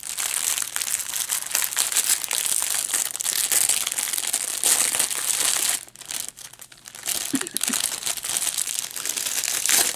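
Plastic packaging crinkling as small bags of diamond painting drills are handled and sorted: steady crinkling for about six seconds, a short lull, then more crinkling near the end.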